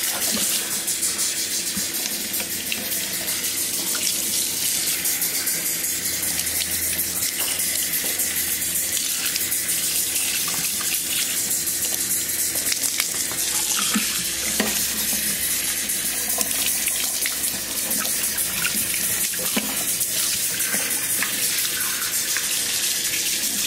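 Tap water running steadily into a stainless steel sink, pouring over a capuchin monkey's wet fur as he is bathed and rinsed.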